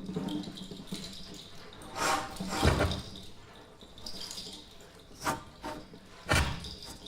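Amplified bass flute and drum kit playing sparse extended-technique sounds: breathy, airy hiss with scattered short clicks and hits, including two low thumps, about a third of the way in and near the end.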